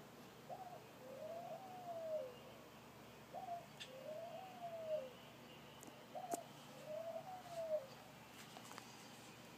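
A dove cooing: three phrases about three seconds apart, each a short upward coo followed by a longer coo that rises and falls.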